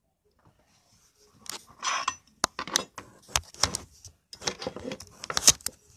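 Handling noise from a phone being repositioned: a quick run of sharp clicks, taps and rubbing against the microphone, starting about a second and a half in.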